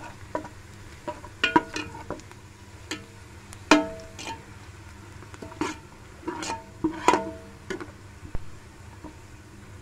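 Metal spoon scraping and clinking against an aluminium pot while stirring chopped onion and garlic in oil, in about a dozen irregular strokes, each leaving a short ringing tone from the pot. A steady low hum runs underneath.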